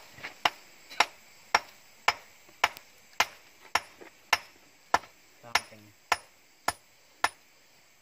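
A hand-held stone struck against a rock, about fourteen sharp, regular knocks just under two a second, stopping about seven seconds in: chipping at rock to break off a chunk of gold-vein ore.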